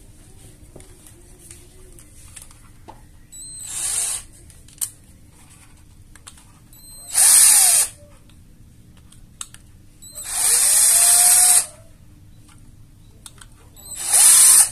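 Electric screwdriver run in four short bursts, each whining up and back down, the third the longest, as it tries to undo the screws of a small plug-in adaptor's case without getting it open.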